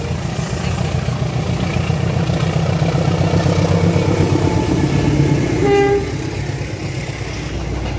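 A KAI CC203 diesel-electric locomotive hauling a passenger train passes close by: engine rumble, then the coaches rolling along the rails. A short horn toot about six seconds in.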